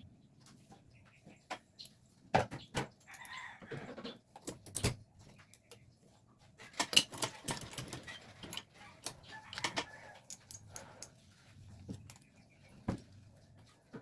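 Irregular clicks, taps and light metallic clinks of small parts and tools being handled, with an occasional bird call in the background.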